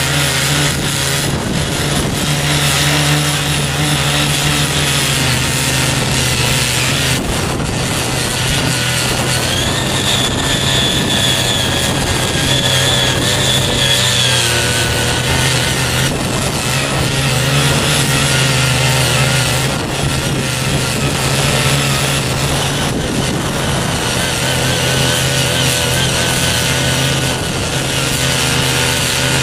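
Small petrol engine of a CY50 foldable mini cultivator running steadily under load while its tines till deep into the soil. A higher whine joins in for a few seconds about a third of the way in.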